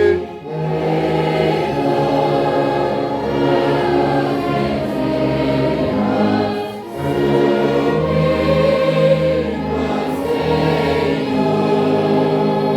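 Choir singing a hymn with an instrumental ensemble, in held chords over a strong, deep tuba bass line.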